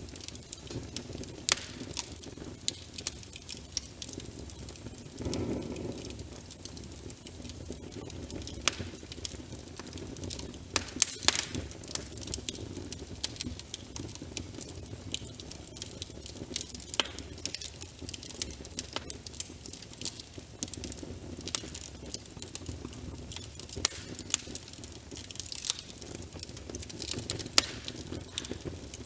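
Wood fire crackling in a fireplace, with frequent irregular sharp pops and snaps over a steady low rush, layered with rain pattering.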